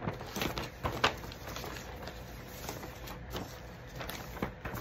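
A large folded paper chart being unfolded and handled: paper rustling and crinkling, with a few sharp crackles in the first second or so.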